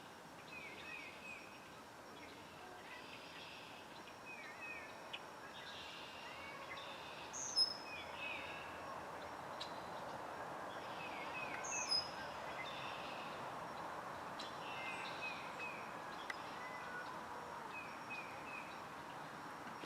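Small wild birds calling: short, high chirps in quick runs of three or four that repeat every few seconds, with a louder, sharper high note twice in the middle, over a steady background of outdoor noise.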